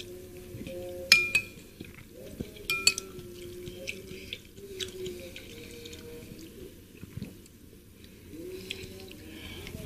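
Metal spoon clinking against a ceramic bowl twice, each strike ringing briefly, amid quieter wet sounds of soupy seblak being spooned up and chewed.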